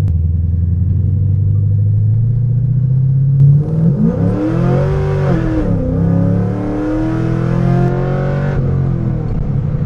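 Cammed Chevrolet Corvette C6 V8 on a full-throttle pull, revs climbing steadily. About three and a half seconds in, the revs flare up and down sharply as the rear tyres break loose and spin, with a rushing hiss for several seconds, before the engine settles into a steadier climb.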